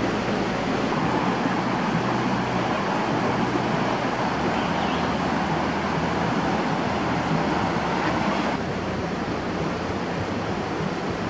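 Stream water running steadily, an even rushing sound with a slight drop in level about eight and a half seconds in.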